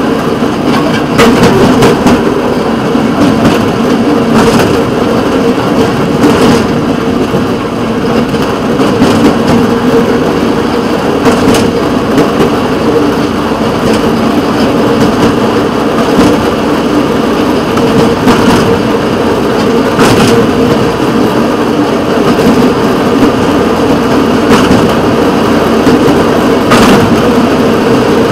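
Engine of the rail motor vehicle WCRG 335 running steadily as it travels along the track, with occasional sharp clicks.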